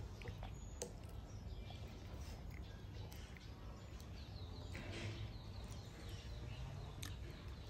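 Faint outdoor background with a few sharp clicks of nut shells being cracked and peeled by hand, and some faint bird chirps around the middle.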